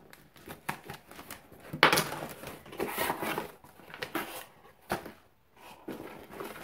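Package being opened by hand: packaging crinkling and rustling in irregular bursts with scattered clicks, the loudest crackle about two seconds in.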